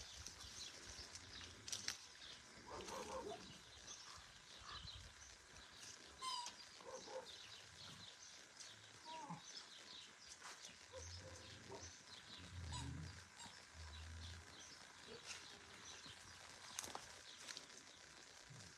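Faint yard ambience: scattered short high chirps and a few faint brief animal calls, with soft low thumps about two thirds of the way through.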